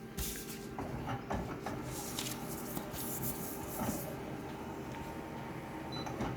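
Photocopier running a copy pass, a steady machine hum with scattered clicks and rustling as the original is moved across the glass.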